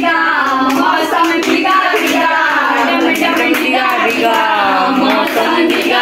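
A group of women singing a song together, clapping their hands along in a steady rhythm.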